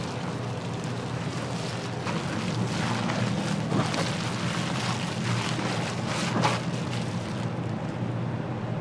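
Pork sizzling and crackling on a hot grill, a dense patter of small pops over a steady low hum.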